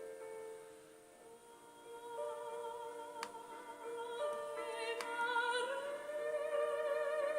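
Slow classical-style music in an operatic manner, with long held notes that waver with vibrato, sung or played. Two short clicks about three and five seconds in.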